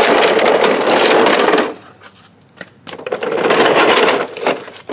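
Hard plastic wheels of a Bruder Mack Granite toy garbage truck rolling and rattling over rough concrete, pushed by hand in two bouts with a short lull between them.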